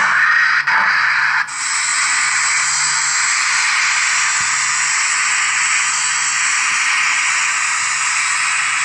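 Steady steam hiss from the sound decoder of a Roco H0 model BR 01 steam locomotive. It breaks off briefly near the start, then resumes about one and a half seconds in and runs on evenly.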